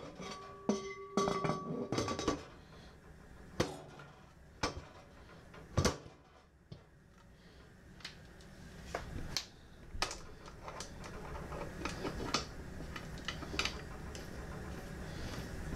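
The wing nuts on the lid of an All-American pressure canner are being turned down by hand, giving scattered metallic clicks and clanks. A short ringing tone sounds in the first couple of seconds. A steady low rushing noise grows slowly louder through the second half.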